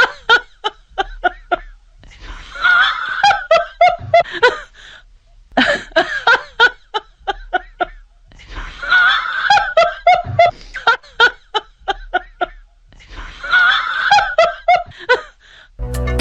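People laughing in about five bouts of two to three seconds each, rapid ha-ha pulses with brief pauses between bouts. Music starts right at the end.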